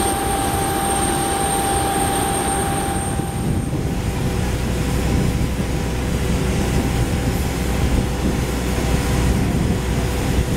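Steady aircraft engine noise: a low rumble with a thin high whine, which gives way to a lower steady whine about three and a half seconds in.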